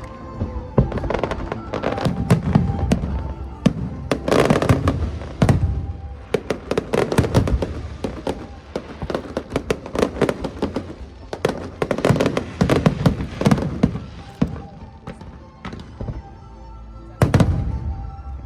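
Fireworks show: aerial shells bursting in quick succession with crackling, and one especially loud bang near the end, with music playing alongside.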